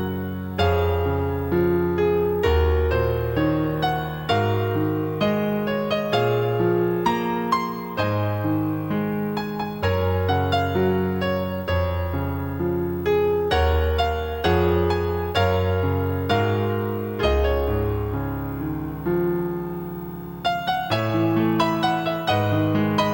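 Background piano music, slow notes and chords on an electric piano, each struck and left to ring away.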